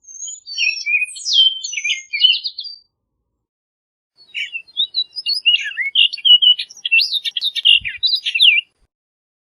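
Orchard oriole singing two song phrases of quick, varied whistles and chattering notes, the first lasting under three seconds and the second, after a short pause, longer at about four and a half seconds.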